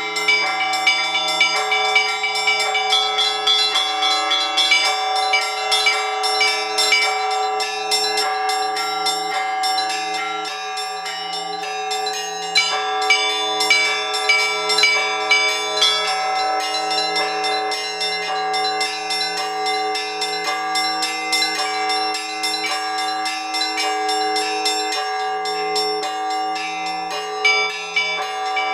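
Orthodox church bells rung by a bell ringer in a continuous peal: quick, dense strikes of the small bells over the lasting hum of the larger bells.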